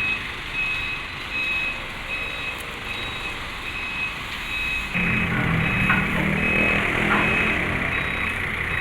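A vehicle's reversing alarm beeping steadily, about one and a half to two beeps a second, over a running vehicle engine that becomes louder about five seconds in.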